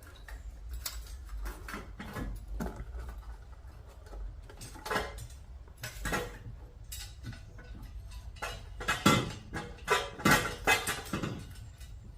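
Irregular metal clinks and clanks of bolts and an exhaust header being handled and fitted to the engine, with a cluster of louder knocks near the end.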